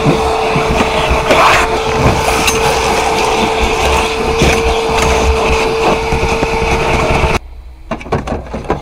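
Vacuum cleaner running steadily with a constant whine, its hose nozzle sucking grit and debris off car floor carpet; it cuts off abruptly about seven seconds in, followed by a few light clicks of plastic trim being handled.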